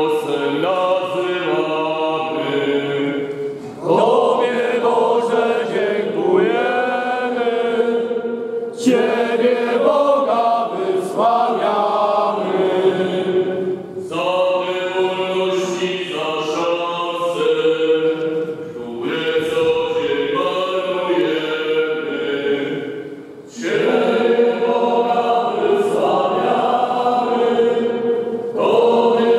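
Many voices singing a church hymn together, in phrases a few seconds long with short breaks between them.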